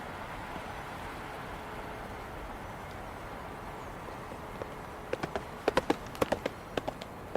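A steady rushing background noise, with a quick, irregular run of about ten sharp knocks or clicks starting a little past halfway.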